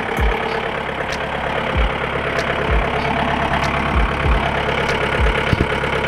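John Deere 4720 compact tractor's diesel engine running steadily, heard from the operator's seat, with several short low thumps.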